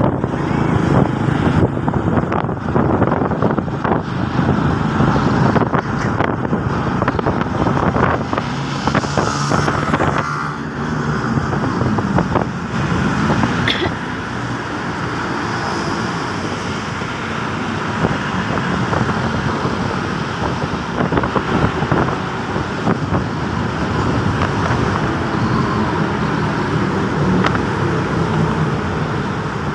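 Motorcycle engine running while riding in traffic, with wind rushing over the microphone and passing road traffic; the wind is gustier in the first half and steadier later.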